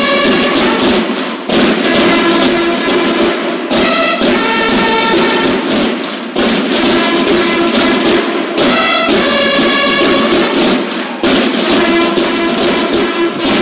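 Banda de guerra drum and bugle corps playing: fast, dense snare drumming throughout, with short bugle notes breaking in about four seconds in and again about nine seconds in.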